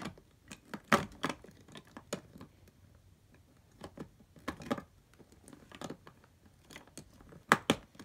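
Plastic Lego bricks clicking and knocking as they are pressed onto a baseplate, in scattered irregular clicks, the sharpest about a second in and a close pair near the end.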